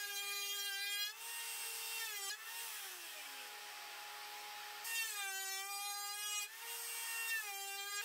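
Table-mounted router spinning a half-inch cove (reverse roundover) bit with a steady high whine while a particle-board cabinet door is fed along the bit to round its edge. About two and a half seconds in, the whine sags in pitch under a rushing cutting sound, then comes back up strongly about five seconds in.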